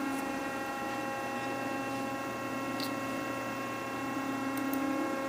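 Stepper motors of a DIY CNC router whining steadily as the machine moves the bit slowly through an automatic find-center probing cycle, the low part of the whine swelling and easing as the motion changes. A few faint, light ticks come about three seconds in and twice near the end.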